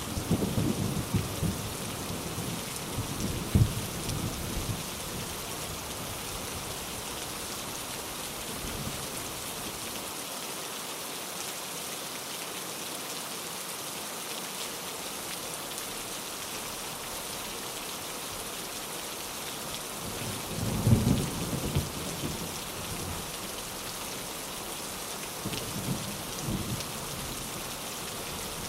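Steady heavy rain with rolls of thunder: rumbles in the first few seconds, the loudest about two-thirds of the way through, and a lighter one shortly after.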